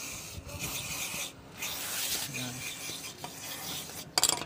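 Aerosol spray cleaner hissing from its nozzle straw onto the engine's oil filter housing, in stretches broken by short pauses, to wash off old oil. A few sharp clicks near the end.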